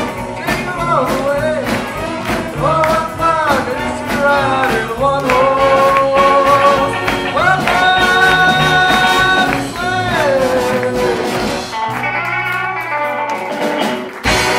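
Live rockabilly big band with electric guitars, upright bass, drums and a horn section of saxophone, trumpets and trombone playing, with long held horn chords in the middle. The music breaks off on a sharp final hit near the end.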